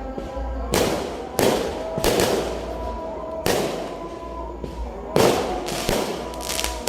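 Fireworks exploding in the sky: about seven sharp bangs at uneven intervals, some in quick pairs, over a faint steady background of sustained tones.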